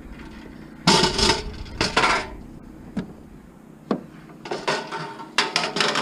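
Heavy cast-iron scrap piece being handled, clanking and rattling against metal: a series of knocks with a short metallic ring, the busiest stretch in the last two seconds.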